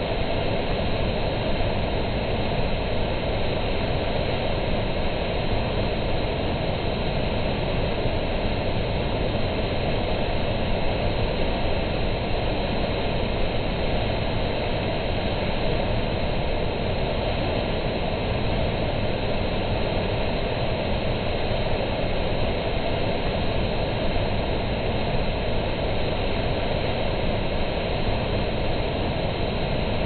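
Water from the Vaillancourt Fountain's square concrete outlets pouring and splashing steadily into its pool: an even, unbroken rushing noise.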